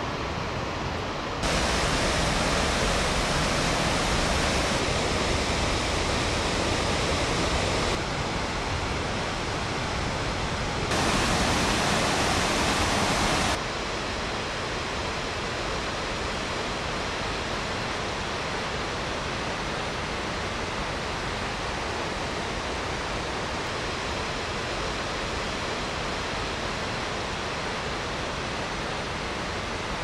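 Dettifoss waterfall: a dense, steady rush of heavily falling water. The loudness steps up abruptly about a second and a half in, eases slightly near eight seconds, jumps again around eleven seconds, and drops back about fourteen seconds in, then stays even.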